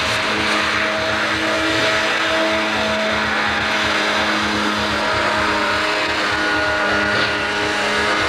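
A small hovercraft's engine running hard, a loud steady drone whose pitch shifts slightly a few times.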